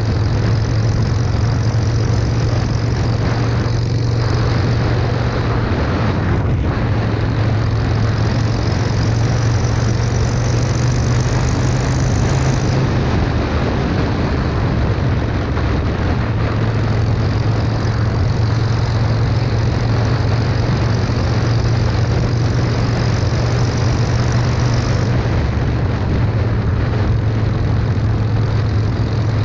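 Harley-Davidson Sportster 883's air-cooled V-twin running under way through straight shotgun exhaust pipes, a steady deep hum. The engine note drops off about 13 seconds in and picks back up a few seconds later, and eases again near 25 seconds.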